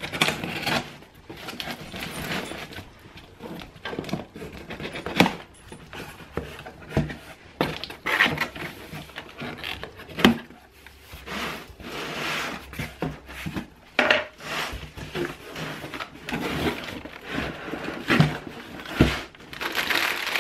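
Cardboard shipping box being opened by hand: a knife scraping and slitting the packing tape, then the cardboard flaps pulled and folded open, with irregular rubbing and rasping and a few sharp knocks.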